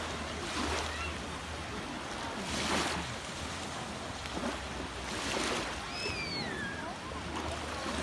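Baltic Sea surf washing onto a beach, the hiss of the water swelling three times as waves break and run up. About six seconds in there is a brief high call that slides downward in pitch.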